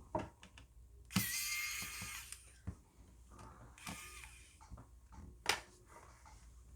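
Small electric precision screwdriver whirring briefly, for about a second starting a second in and again more briefly near four seconds, amid light clicks and taps of tools on the handheld's plastic shell and screws.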